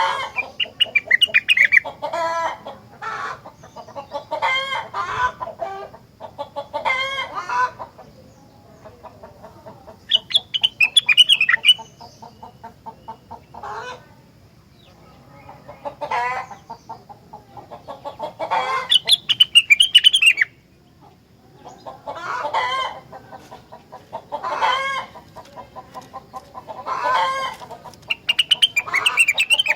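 Rengganis songbird singing continuously in loud phrases of rapid trilled and chattering notes, each lasting a second or two, with short pauses between phrases.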